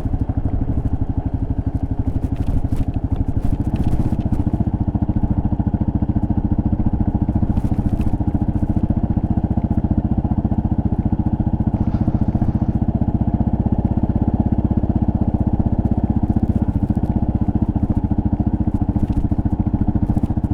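Kawasaki KLR650 S's single-cylinder engine running steadily while riding on a dirt track. Its note steps up a little about four seconds in.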